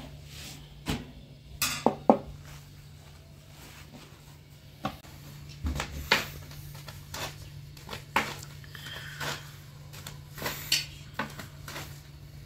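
Cookware and kitchen utensils clinking and knocking at irregular moments, about a dozen sharp strikes, the loudest about two seconds in. A steady low hum runs underneath.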